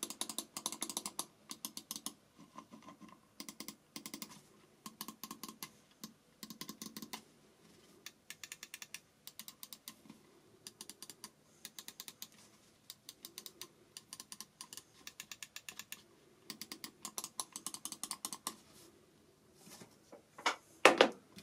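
Buttons of a Glorious Model I2 Wireless gaming mouse being clicked in quick runs, one button after another, with short pauses between runs. Near the end comes a louder handling noise as the mouse is moved off the mat.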